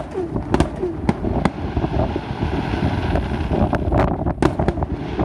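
Aerial firework shells bursting: a string of sharp bangs and crackles over a steady low rumble.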